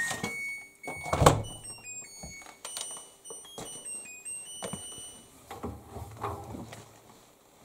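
The LG AiDD Steam washing machine's end-of-cycle melody ends on its last held note. About a second later comes one loud thunk as the door is opened for unloading, followed by scattered light clicks and knocks.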